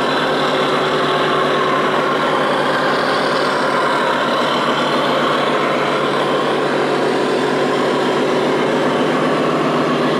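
Diesel truck engine sound played by an RC truck's sound module speaker, running steadily.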